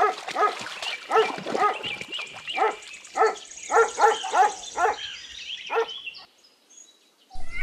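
A dog barking over and over in quick, short barks, two or three a second, stopping about six seconds in.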